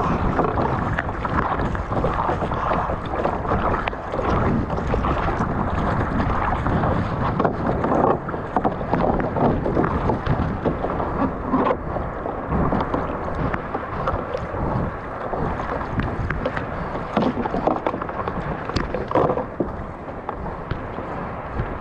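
Sea water sloshing and splashing around a kayak's hull: an uneven rushing noise broken by irregular slaps of water.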